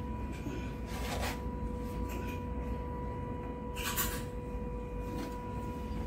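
Heavy insulated power cables being handled and dragged against a steel electrical panel: a few brief scrapes and rustles, the loudest about four seconds in, over a steady low hum with a faint steady whine.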